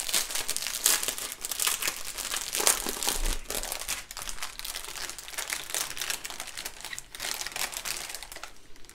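Thin clear plastic bag crinkling loudly and continuously as hands open it and work a bundle of small ziploc drill bags out of it, in an irregular run of crackles.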